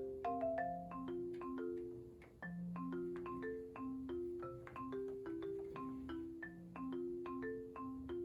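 Background music: a light, bouncy tune played on marimba or xylophone, a steady stream of short struck notes.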